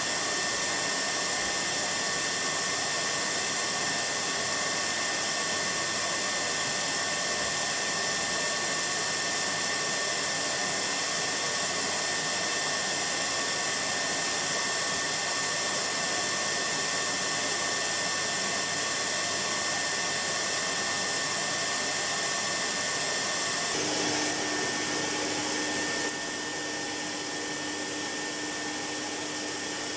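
1973 Goblin 702 cylinder vacuum cleaner's bypass motor running steadily with a high whine. Near the end a lower hum joins in and the sound drops slightly quieter.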